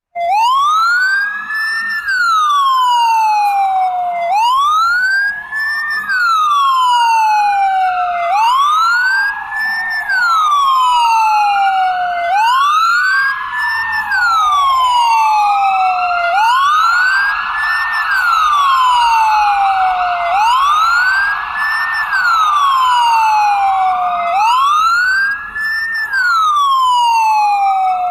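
Ambulance siren in wail mode: one loud tone slowly rising then falling, a full cycle about every four seconds, with a fainter second wail overlapping out of step.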